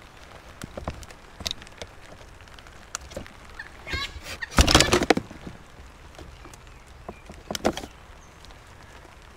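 Scattered knocks and clatters from handling scrap e-waste, with a short squeak and then a louder rattling clatter about halfway through, over a steady hiss of rain.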